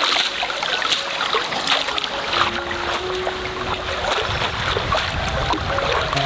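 Water splashing and trickling with many small clicks, under soft background music.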